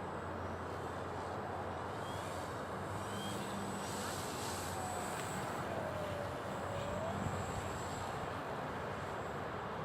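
Gusty wind buffeting the microphone, with the engine of a radio-controlled Funtana aerobatic model plane running in the distance. Around the middle, the engine's pitch dips and then rises again.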